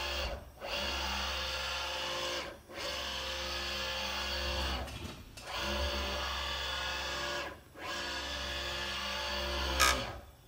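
JMC iHSV57 100-watt servo motor turning the Taig CNC mill's 20 TPI leadscrew at about 4000 RPM (200 inches per minute), driving the table back and forth. A steady motor whine comes in runs of about two seconds, each broken by a short pause at the reversal, with some vibration of the machine at this speed. A single sharp clack comes near the end, just before the last stop.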